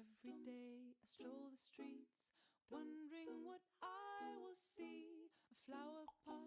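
Faint background music: a woman's voice singing a melody in short phrases with held notes.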